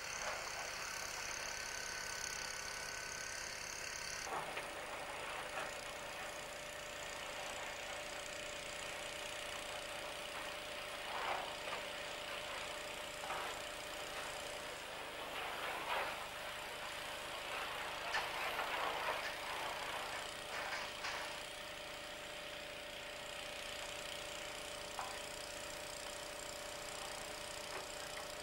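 Wind buffeting the microphone in gusts over a steady machine hum. The sound changes about four seconds in, and the gusts swell louder in the middle.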